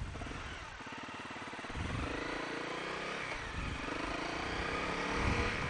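Honda CRF250L's single-cylinder engine pulling at low revs through a turn, then accelerating from about two seconds in, its note rising steadily over a hiss of wind.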